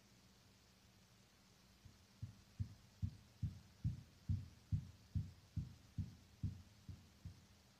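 Muffled hammering from someone building a chicken coop about 25 m away, picked up faintly by a phone buried in the ground. About a dozen dull, low blows in a steady rhythm of roughly two and a half a second, starting about two seconds in.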